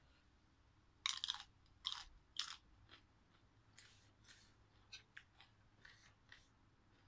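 Close-up chewing of crisp raw vegetables: three loud crunches between about one and two and a half seconds in, then softer crunching bites.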